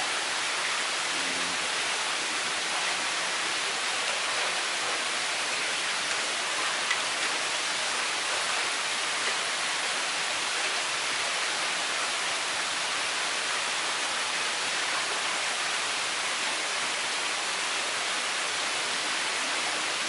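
Steady, even rushing hiss that holds the same level throughout.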